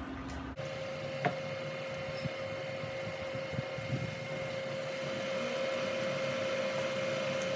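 A wooden spoon stirring stir-fry in a stainless steel pan, with scattered light clicks and scrapes, over a steady high hum from a Duxtop induction cooktop running.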